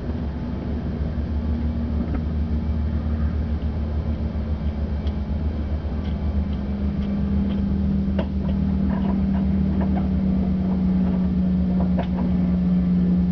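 Aircraft engine and propeller droning steadily, heard from inside the cabin. Its note drops slightly about six seconds in and it grows a little louder, with a few faint clicks over it.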